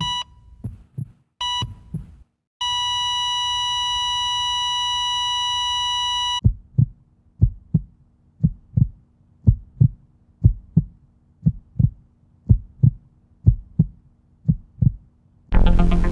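Hospital heart-monitor sound effect: a few short beeps, then a steady flatline tone for about four seconds, then a heartbeat thumping in lub-dub pairs about once a second, a revival cue. Electronic music cuts in near the end.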